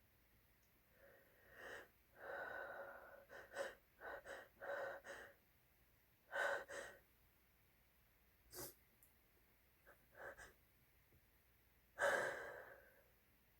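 A person's sneeze buildup: a run of sharp, hitching gasps and catching breaths, several in quick succession, with a louder, longer breath burst about twelve seconds in that fades over about a second.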